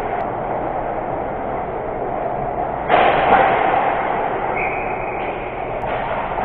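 Ice hockey skates scraping and carving on rink ice, a steady rushing noise. About three seconds in comes a sudden louder scrape as the goalie drops into the butterfly.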